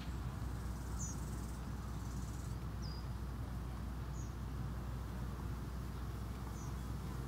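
Garden ambience: a steady low rumble with short, faint high chirps every second or two.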